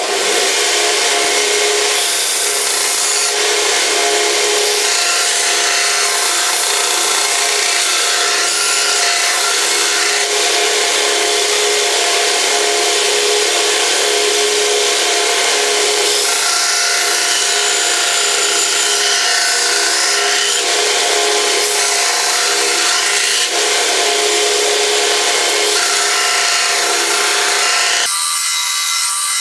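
Belt grinder running, with a steel knife blank made from an old file held against the abrasive belt: a steady motor hum under a harsh, loud grinding hiss that swells and eases in passes lasting a few seconds, and turns duller near the end.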